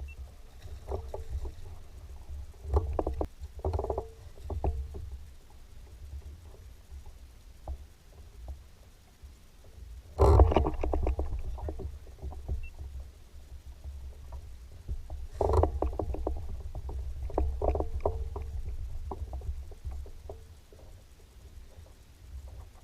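Knocks and clicks on a fishing boat, over a steady low rumble, with two sharp, louder knocks about ten and fifteen seconds in.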